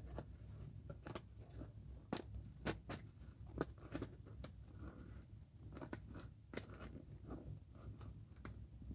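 Gift packaging crinkling and crackling as it is handled and opened, in irregular sharp crackles several times a second.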